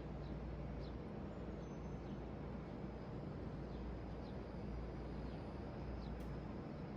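Steady background noise, a low hum and hiss, with faint short high chirps now and then and no distinct keystrokes.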